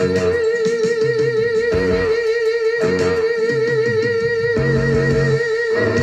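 Rock music played from a vinyl record: one long note with vibrato is held high over band chords that change about once a second.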